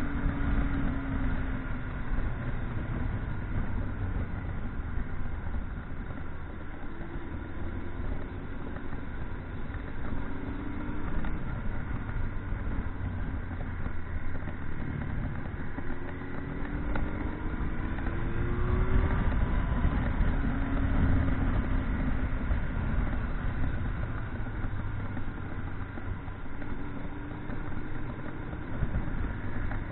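Motorcycle engine running on the move under a heavy rumble of wind noise, its pitch rising and falling several times as it speeds up and changes gear.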